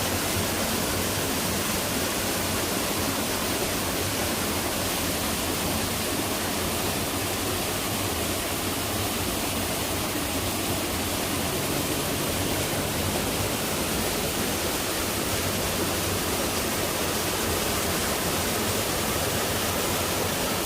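Hot-spring waterfall pouring into a pool: a steady, even rush of falling water.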